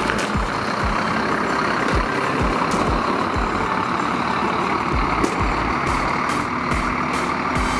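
A three-axle tour coach's diesel engine running as the coach pulls away, with a steady low beat of thumps about twice a second.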